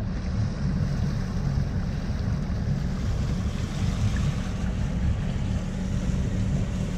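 Sailboat's inboard engine running steadily as the boat motors slowly, with wind noise on the microphone.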